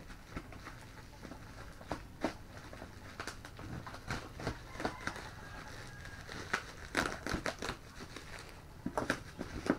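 Parcel packaging being cut and torn open by hand: irregular crinkling and rustling with scattered sharp crackles and small knocks.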